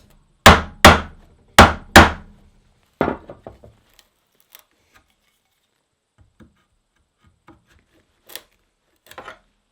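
Mallet striking a mortise chisel into wood four times, in two quick pairs, chopping the mortise. Then a lighter knock and faint clicks and scrapes as the loosened chips are pried out.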